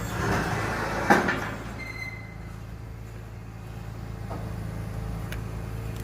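Garbage truck's engine running steadily, with a rushing hiss and a sharp metal clank about a second in, then a few lighter clicks.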